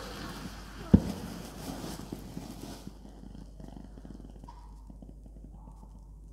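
Thermite of iron oxide and aluminium burning in a clay pot: a loud rushing hiss of the flare and spray of sparks, with one sharp bang about a second in. The hiss stops about three seconds in, leaving only faint scattered crackles as the molten iron glows.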